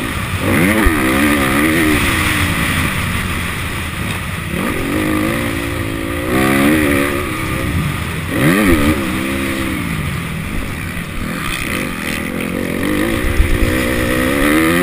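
Motocross bike engine revving up and easing off several times, its pitch climbing and dropping with each surge, over a steady rush of noise.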